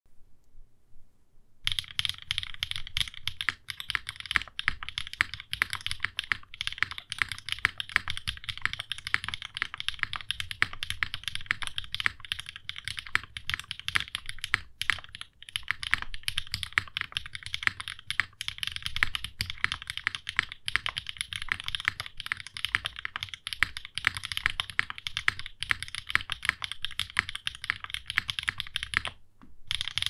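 Continuous typing on a TGR GSK x Mechlovin 910 mechanical keyboard with factory-lubed HMX Jammy linear switches in an O-ring-mounted aluminum plate, under GMK keycaps. It starts about a second and a half in and keeps up a dense run of key clicks, with a brief pause near the end.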